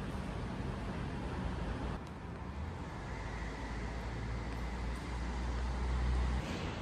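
Motor vehicle noise: a steady low rumble that grows heavier about two seconds in, with a faint steady whine, then cuts off suddenly near the end.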